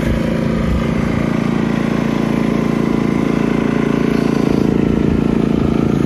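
3200-watt portable generator's engine running steadily at a constant speed, on a test run after sitting unused, with its carburetor freshly refilled with fuel.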